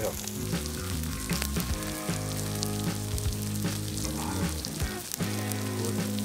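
Campfire crackling with many small, sharp pops, under background music of held chords that change every second or so.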